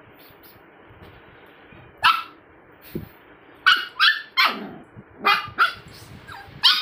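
Puppy barking: a string of short, high-pitched yaps, several coming in quick pairs.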